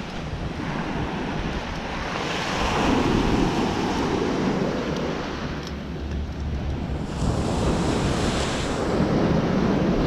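Ocean surf breaking and washing up a sandy beach, swelling louder twice a few seconds apart, with wind buffeting the microphone.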